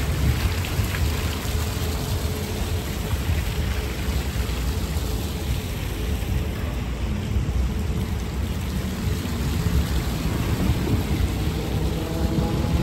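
Fountain jets splashing steadily into a shallow pool, with a steady low rumble underneath.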